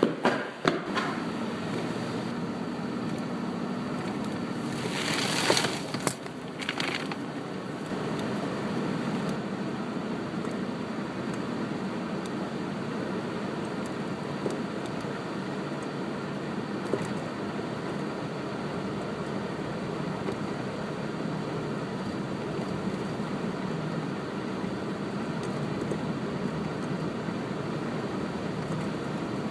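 Car driving on a snowy road: steady road and engine noise, with a brief louder hiss about five seconds in.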